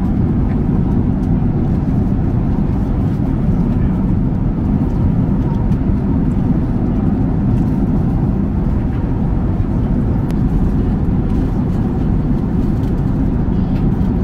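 Steady cabin noise of a Boeing 767-300ER airliner in flight: an even low rumble of engines and airflow, heaviest in the bass.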